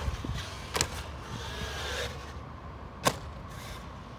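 Traxxas MAXX RC monster truck striking concrete as it jumps through a skatepark bowl: two sharp knocks, one about a second in and a louder one about three seconds in.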